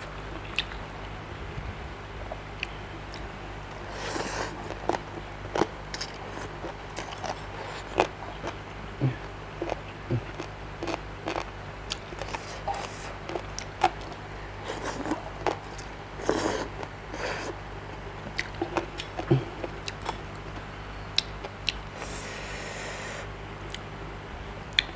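A person eating close to the microphone: chewing and biting seafood papaya salad with octopus, with many short wet clicks and smacks scattered throughout, over a low steady hum.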